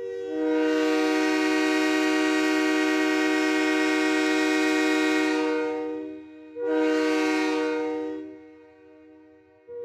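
Train air horn sounding several notes together as a chord, loud: one long blast of about six seconds, then a shorter blast of about two seconds, and another blast starting right at the end.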